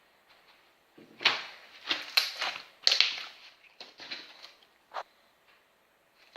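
Slime being squeezed and worked by hand, giving a run of irregular wet crackling squishes, with a short sharp pop near the end.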